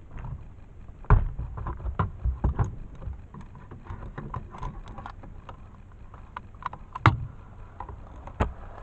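Irregular clicks and knocks of hard parts and tools being handled during repair work, the sharpest about a second in, near seven seconds and near the end.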